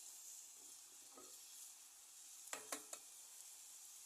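Eggs frying with a faint, steady sizzle. Three quick sharp clicks come about two and a half seconds in.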